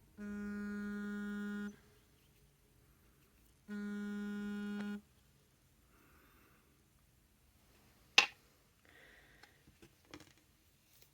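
Mobile phone vibrating with an incoming call: two steady buzzes, each about a second and a half long, a couple of seconds apart. Later comes a single sharp click, the loudest sound, then faint rustling.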